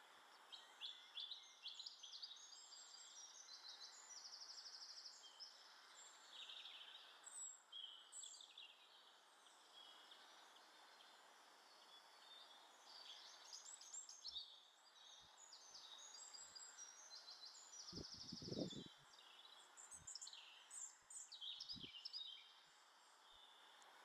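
Small garden songbirds calling and singing: high chirps and several fast trills, faint over a steady background hiss. A few dull low knocks come in the second half, the loudest about three-quarters of the way through.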